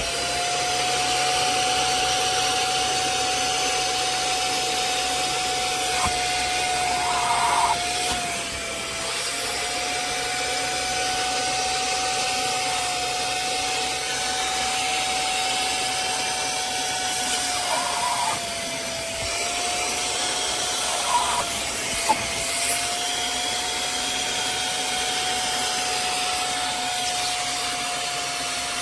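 Hoover CleanSlate portable carpet and upholstery spot cleaner running: a steady suction-motor whine over a high hiss, its pitch sagging briefly a few times, with a few short louder noises along the way.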